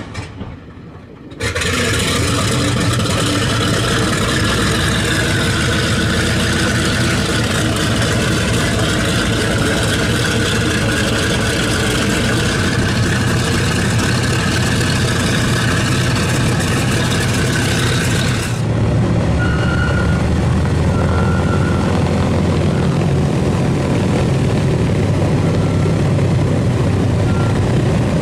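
Big radial piston engines of a Boeing B-29 Superfortress running close by, a loud rumble with a wavering pitch that comes in abruptly about a second and a half in. About two-thirds of the way through the sound switches suddenly to a deeper, duller drone of the bomber's engines as it taxis.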